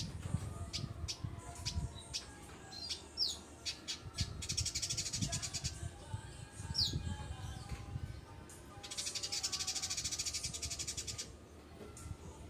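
Village indigobird song: sharp chips, two short falling whistles and two long rapid buzzy chattering trills of about one and a half to two seconds each, over a low rumble.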